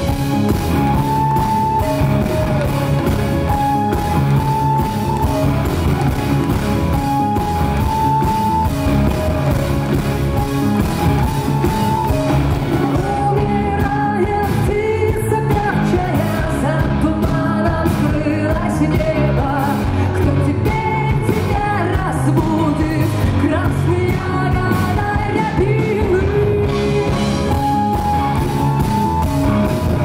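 Live rock band playing a song, with drums and bass under a melody line; a voice singing comes in about halfway through.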